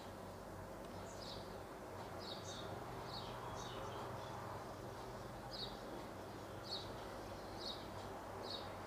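A small bird chirping in the background, short high chirps repeating about once a second, over a faint steady hum.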